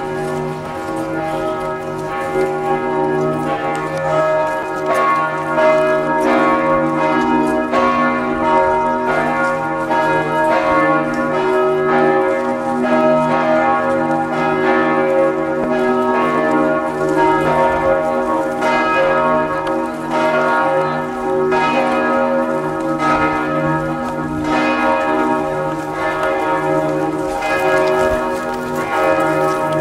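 A peal of church bells ringing continuously, many strokes overlapping with long ringing tones.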